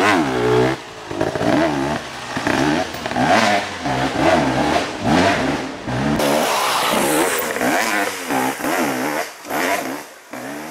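Dirt bike engine revving up and down over and over as the rider works the throttle climbing a steep wooded hill, fading near the end.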